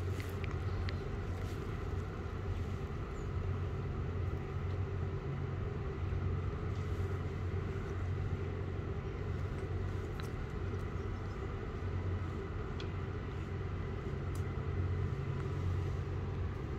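A steady low rumble throughout, with a few faint clicks.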